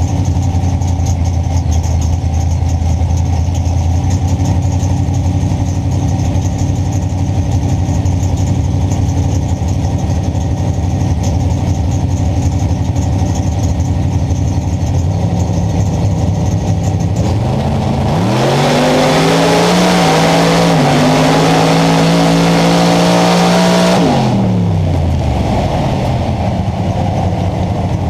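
Race car engine idling steadily, then about eighteen seconds in it climbs in pitch under full throttle and runs hard for about six seconds before dropping off, as on a drag-strip pass.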